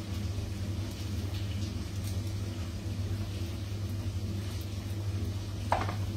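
A steady low mechanical hum, with one sharp knock near the end.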